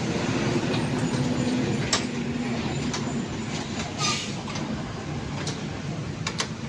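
Motorcycle engine running steadily, a loud dense rumble with a few sharp clicks over it.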